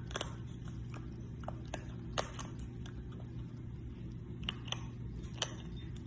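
Baby raccoon chewing food held in its forepaws, with irregular small crunchy clicks and crackles. A steady low hum runs underneath.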